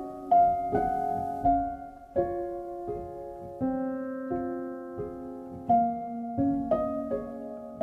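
Slow solo piano music, single notes and chords struck about every three-quarters of a second and left to ring.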